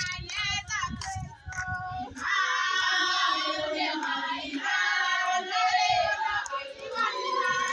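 A group of women singing together in high voices, getting fuller and louder about two seconds in. Low thumps come under the singing in the first couple of seconds.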